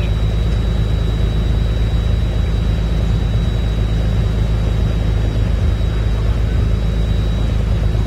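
A boat's engine running steadily under way, a constant low rumble with the wash of water and air over it, and a thin steady high whine above.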